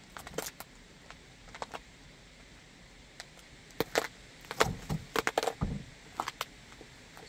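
Cucumber cracking and crunching under a wedge sandal on concrete as it is crushed: scattered sharp cracks at first, then a dense run of crunches with dull thuds between about four and six seconds in as it splits apart, and a last few cracks near the end.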